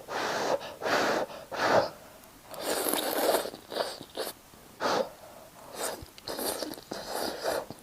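A person slurping noodles from a bowl of noodle soup: a run of short, airy sucking slurps, about eight in all, with brief pauses between them.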